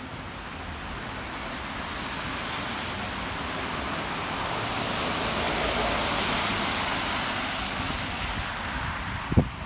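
A car passes on a wet road, its tyre hiss swelling to a peak about halfway through and then fading away. A brief low thump comes near the end.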